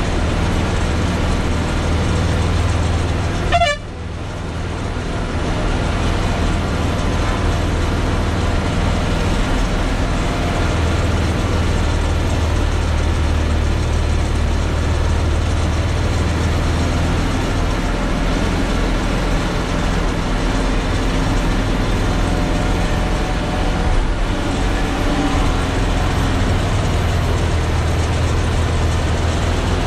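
Lorry's diesel engine running steadily under load, heard from inside the cab as the truck climbs a hill road, with a short horn toot about four seconds in.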